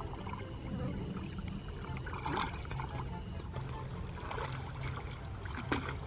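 Shallow muddy water splashing and sloshing as legs wade and hands grope through it, with a few louder splashes about two seconds in, past the middle and near the end, over a steady low rumble.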